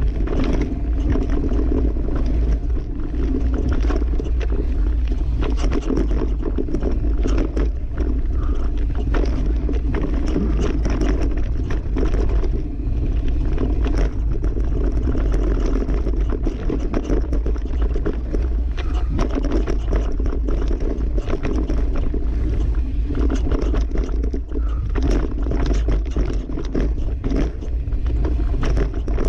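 Downhill mountain bike descending a dirt forest trail, heard from an on-board action camera: steady wind rumble on the microphone, tyres scraping over dirt and roots, and frequent short rattles and knocks of the bike over bumps.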